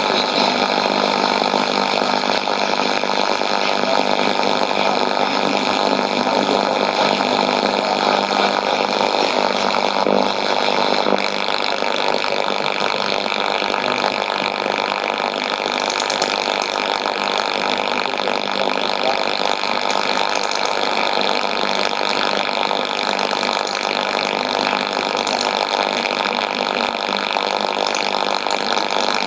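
Shortwave receiver noise from a Sony ICF-2001D tuned to 9985 kHz: a steady hissing static drone with faint steady tones in it and no programme audible, getting slightly quieter about eleven seconds in.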